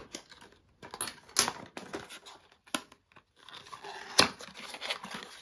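Packaging being opened: plastic wrap crinkling and tearing, with a run of sharp clicks and snaps, then a denser crackling rustle near the end.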